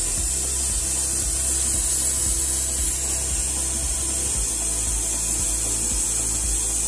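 Sealy pneumatic vacuum brake bleeder hissing steadily as compressed air runs through it, sucking brake fluid and air bubbles from an open caliper bleed nipple.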